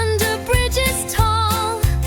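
Children's nursery-rhyme song: a sung melody with vibrato over a bright backing track and a steady, bouncing bass beat.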